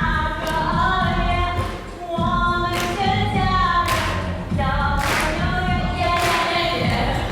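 A group of voices singing a melody together, with a sharp hit about once a second keeping a beat.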